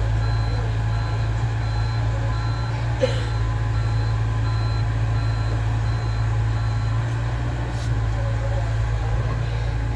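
Compact tracked excavator's diesel engine running steadily with a low hum, while a warning alarm beeps in a regular on-off pattern through about the first half and then stops. A single knock about three seconds in.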